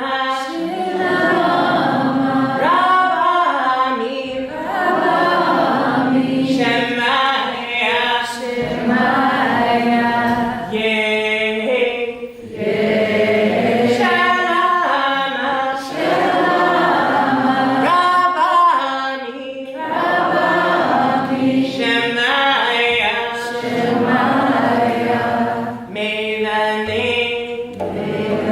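Unaccompanied voices singing a slow, chant-like sacred melody in phrases of a few seconds, with brief pauses for breath between them.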